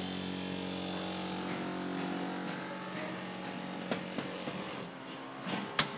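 Knocking on a glass-paned wooden door: a few light knocks about four seconds in, then one sharper knock near the end, over a steady machine-like hum.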